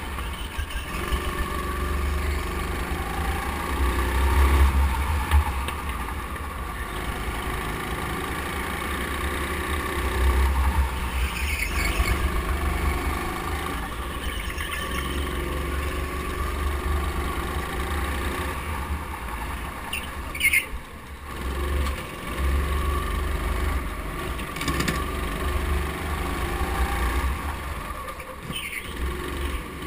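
Indoor go-kart engine running under the driver, its revs rising and falling through the corners, with a few brief high-pitched tyre squeals.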